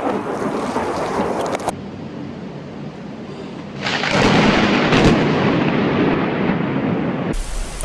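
Thunderstorm with rain hissing steadily, then just before four seconds in a sudden loud crack of thunder that rumbles on for about three seconds.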